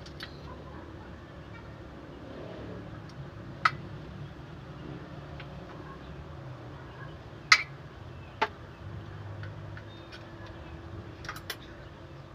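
Sharp, isolated clicks or knocks from work on a truck: single hits about four seconds in, then two close together past the middle, and a quick cluster of three near the end, over a steady low hum.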